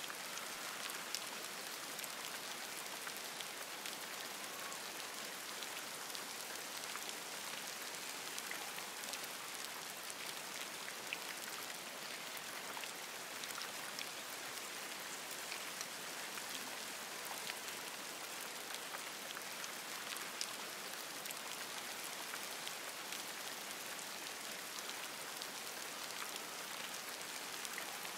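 Steady rain falling on forest foliage: an even hiss of rain with many single drop hits ticking through it, unchanging throughout.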